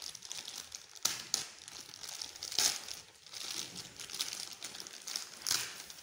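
Thin clear plastic bag crinkling and rustling as hands work open its knotted top, in irregular handling bursts with sharp crackles about a second in, midway and near the end.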